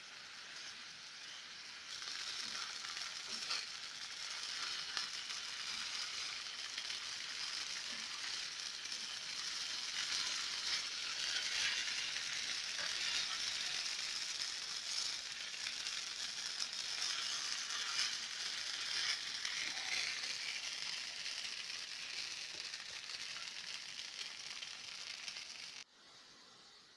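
Food sizzling in a frying pan: a steady hiss with small scattered pops and crackles. It grows louder about two seconds in and cuts off suddenly near the end.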